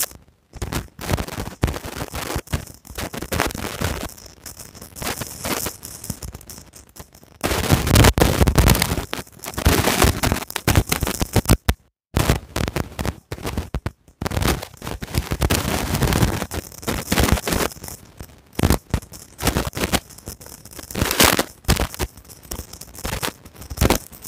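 Loud, irregular crackling and popping noise like heavy static, cutting out to silence for brief moments a few times.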